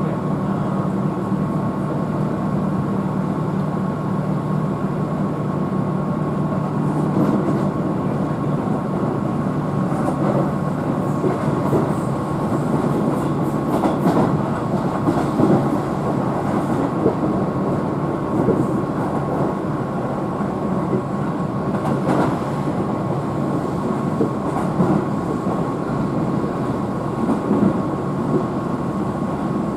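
Keihan electric commuter train running at speed, heard from inside the passenger car: a steady rumble of wheels on track with a constant high whine and occasional rail-joint clicks.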